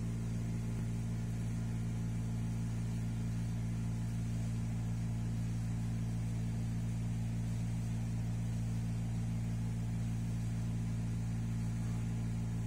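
Steady, unchanging low hum.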